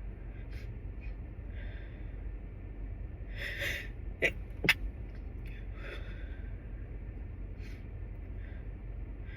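A man's stifled sneezes: a gasping inhale about three and a half seconds in, then two short, clamped-off sneezes half a second apart, followed by a few quiet breaths.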